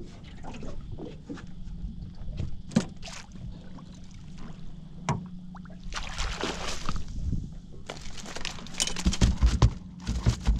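Water splashing and dripping around a small fishing boat, with scattered knocks on the hull. About eight seconds in comes a run of heavy thumps on the deck while a freshly landed flathead is handled.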